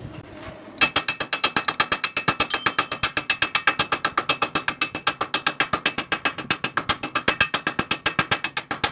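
Stick-welding arc with an E6013 rod, crackling in rapid, fairly regular sharp clicks, about nine a second, starting about a second in.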